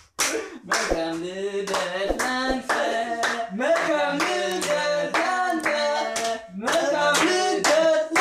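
Hands clapping in a quick, steady rhythm while a man's voice sings along in long held notes.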